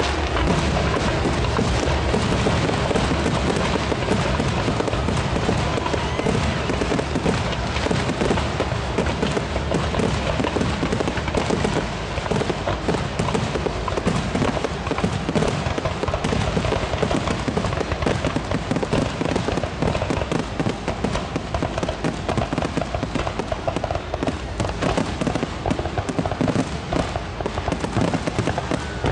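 Aerial firework shells bursting in a dense, continuous barrage, booms and crackles overlapping with no gaps between them.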